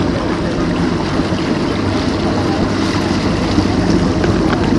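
Motor boat's engine running steadily under way, with the wake water churning and rushing behind the stern.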